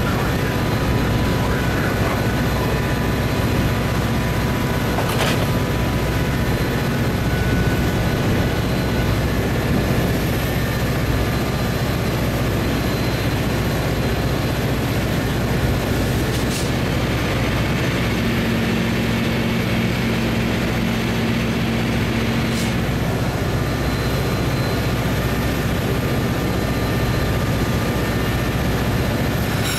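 Metra diesel locomotive idling while its commuter train stands at the platform: a steady low engine rumble, with three brief sharp clicks spread through it.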